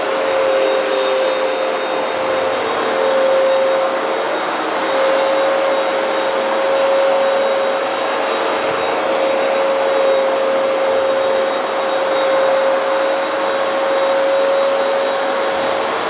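Hoover PowerDash Advanced Pet upright carpet cleaner running, its suction motor giving a steady whine over a rushing hiss as it makes wet passes over a rug.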